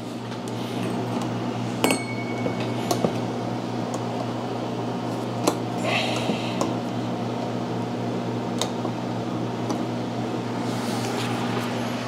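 Metal pliers working the spring clamp on a lawn mower's rubber fuel line: a few sharp clicks and clinks of metal on metal, with short rustles, over a steady low hum.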